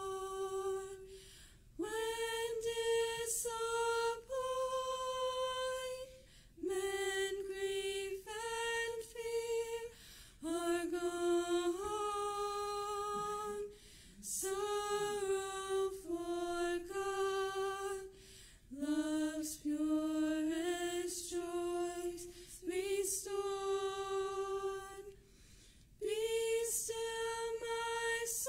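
Women's voices singing a slow song a cappella, with held notes in phrases separated by short breaths.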